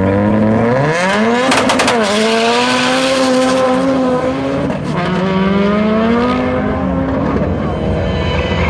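VW Beetles launching in a drag race: an engine revs up hard off the line, with a short rough burst about a second and a half in, then climbs through the gears with a shift near the middle.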